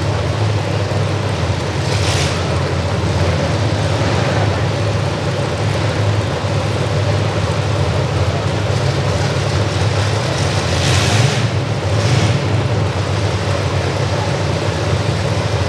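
Demolition derby trucks' engines running steadily and loudly, with three short hissing bursts: one about two seconds in and two close together near the end.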